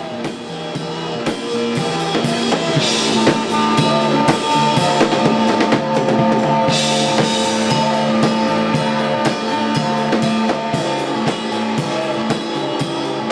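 Instrumental band music: a drum kit keeps a steady beat with kick and snare under a stepping bass line, while long held notes ring above.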